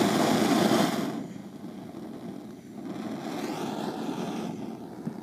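Homemade petrol-air torch burning with a loud, steady rushing hiss that drops sharply about a second in to a quieter, lower rumble.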